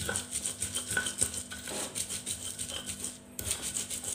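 Stone pestle grinding against a stone mortar (ulekan and cobek), crushing chilies, salt and shrimp paste in quick repeated strokes, with a brief pause a little over three seconds in.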